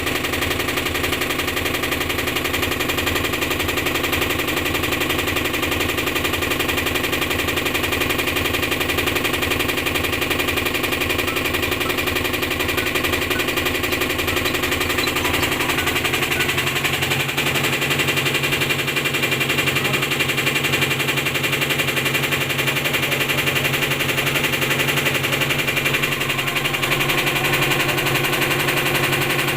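Top-load washing machine running with a fast, steady rattling knock over its motor hum: the abnormal noise that is the machine's fault. About halfway through, the lower hum changes pitch.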